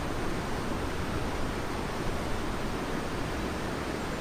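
Steady rushing of a fast-flowing river.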